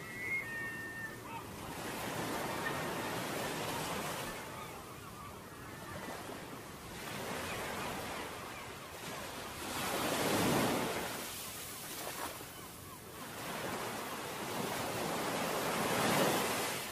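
Ocean surf: a steady rushing wash of waves that swells and falls back every few seconds, with the biggest surges about ten seconds in and near the end.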